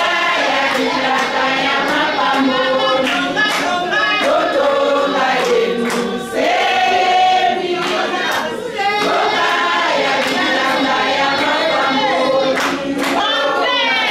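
A group of women singing together as a choir, many voices at once and without a break.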